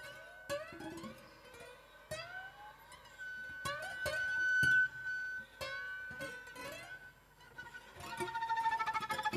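Improvised music for prepared piano and electric violin: sparse plucked and struck string notes, with a high violin note held steadily through the middle. From about eight seconds in, the violin starts a fast repeated bowed figure.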